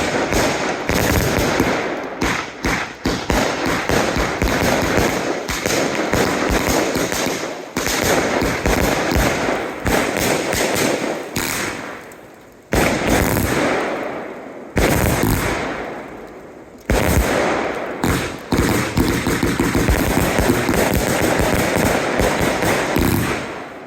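Fireworks going off in a rapid, continuous barrage of bangs and crackles. In the second half the firing comes as a few loud bursts about two seconds apart, each fading away before the next.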